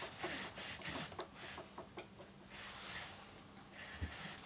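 Mini craft iron being pushed back and forth over small quilt patches on a padded pressing board: soft, faint rubbing strokes, several a second at first and then fainter, with a light bump near the end.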